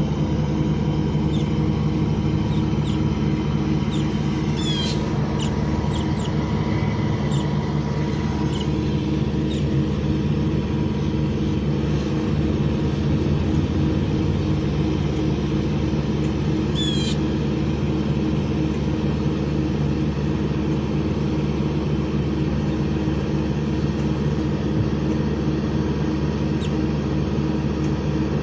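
Steady low drone of an idling vehicle engine, with two brief high chirps, one about five seconds in and one at about seventeen seconds.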